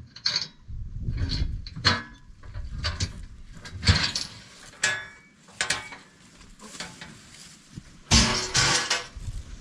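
Irregular knocks, clatter and scraping as a load of materials and tools is handled and unloaded, with a louder rough scraping rush about a second long near the end.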